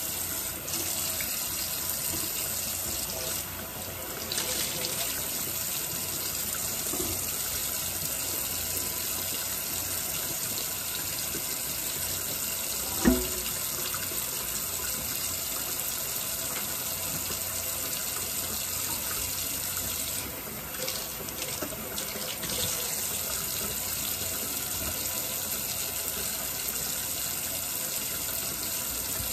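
Kitchen faucet running water into a sink as a steady rush, briefly broken twice. One sharp knock about halfway through.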